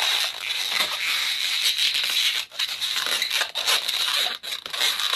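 Yellow 260 latex modelling balloon being twisted and rubbed between the hands, a continuous squeaking, rubbing noise that breaks off briefly about halfway through and again near the end.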